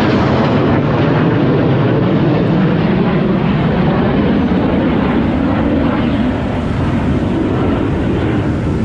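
Military jet aircraft flying over in formation: a loud, steady jet roar that eases slightly past the middle.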